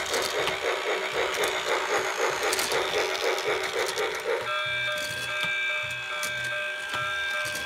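Electronic sound effects from a battery-powered toy T-rex's small speaker. A buzzy sound pulses about five times a second, then about halfway through it switches abruptly to a steady chord of several electronic tones.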